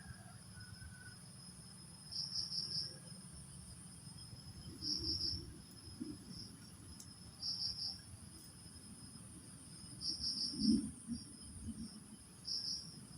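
Insects calling: a steady high-pitched buzz, with short bursts of rapid chirps repeating about every two and a half seconds, over a low rumble.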